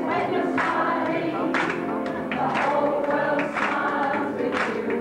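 A group of women's voices singing together over musical accompaniment, with a sharp beat about once a second.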